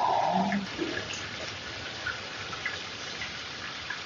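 Thin-sliced pork belly sizzling on a hot griddle, a steady hiss with small scattered pops. Background music ends about half a second in.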